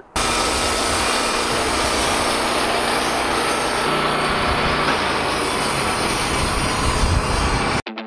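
Wood-Mizer LT15 portable band sawmill running steadily as its head is pushed through a large cedar log, engine and band blade cutting together. The sound cuts off suddenly near the end.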